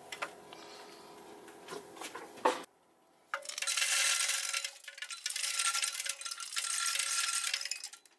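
Light metal clinks and taps as metal stove parts are handled. After a short break, a louder steady hiss with fine crackling runs for about five seconds.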